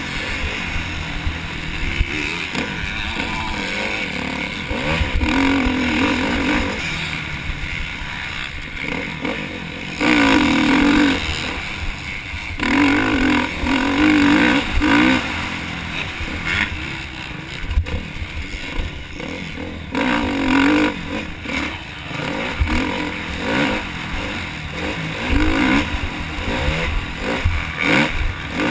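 KTM motocross bike engine heard from the rider's helmet camera, revving hard and falling off again and again as the throttle is opened and shut around the dirt track.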